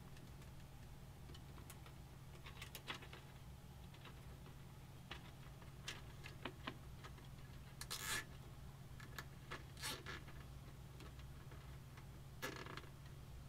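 Scattered small clicks and rustles of hands handling and bundling the USB 3.0 front-panel cable inside a PC case, over a steady low hum.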